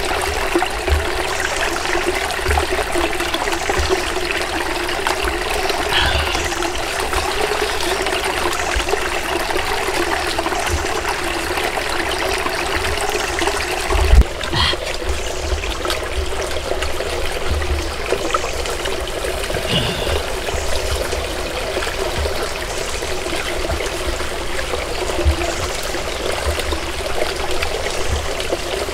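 Shallow rocky stream trickling steadily over stones. A single sharp thump stands out about halfway through.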